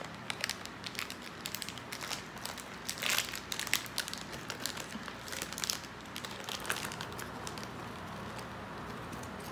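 Plastic snack packet crinkling as it is opened and handled, in scattered crackles that are busiest in the first few seconds and thin out after.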